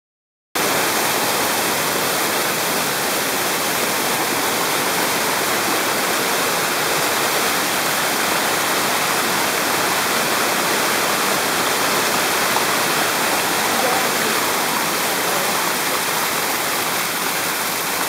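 Dunn's River Falls: water cascading over stepped rock ledges in a steady, loud rush that starts about half a second in.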